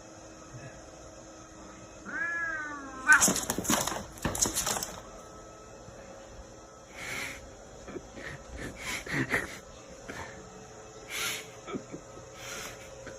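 A cat gives one short meow about two seconds in, followed by a run of loud, harsh noisy bursts and then scattered shorter ones.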